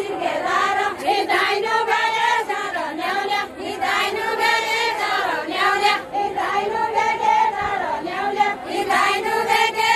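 A group of women singing a Deuda folk song together in short repeating melodic phrases.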